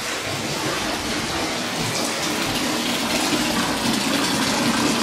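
Bathtub tap running, a steady gush of water pouring into the tub.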